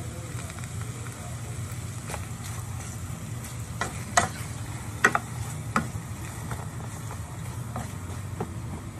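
Pork and chicken pieces with sliced onions sizzling as they brown in a nonstick frying pan, stirred with a spatula. A few sharp knocks of the spatula against the pan stand out about four to six seconds in, over a steady low hum.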